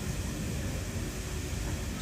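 Steady outdoor background noise, mostly a low rumble, with no distinct events.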